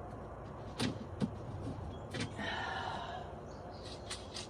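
A few light clicks and knocks, with a brief rustle about halfway through, as small drawer hardware is handled.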